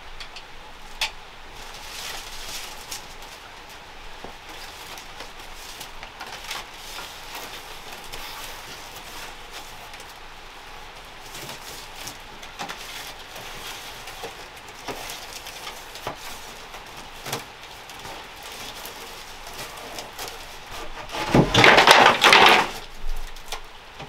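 Light knocks of bamboo pieces being handled against a steady background hiss, then a loud rushing noise lasting about a second and a half near the end.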